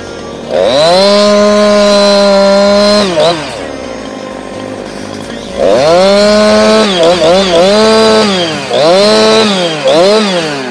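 Husqvarna 346XP two-stroke chainsaw bucking a fallen dead log. It is revved to full throttle for about three seconds and drops back to idle. Then it runs at full throttle again for about four seconds, the pitch dipping briefly a few times under load, followed by two short throttle bursts near the end.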